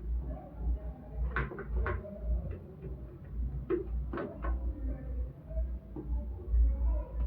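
Workbench handling noise: several sharp clicks and knocks of hard parts being handled, over a low rumble.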